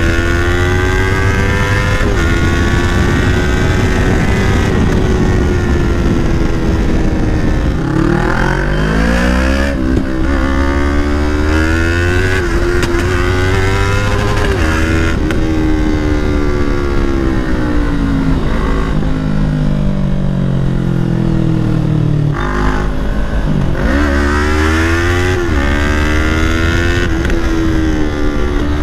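Yamaha R3's 321 cc parallel-twin engine through a Leo Vince full-system exhaust, ridden on the road. The exhaust note climbs with the revs and drops back at each gear change, again and again. Past the middle it settles to a lower, steadier note for a few seconds, then climbs again.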